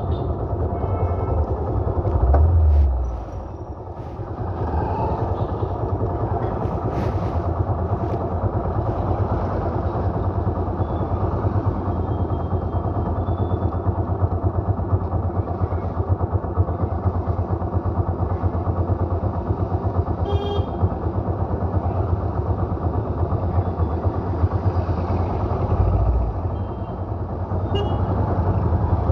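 Dense road traffic with motorbikes and other vehicles passing close by, engines and tyres running continuously. One louder pass comes about three seconds in, followed by a brief lull, and a short high sound comes about two-thirds of the way through.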